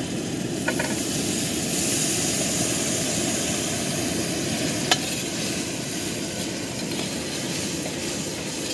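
Onions sizzling in oil in a large aluminium kadai over a gas burner whose flame gives a steady roar, while a ladle stirs them; one sharp clink about five seconds in.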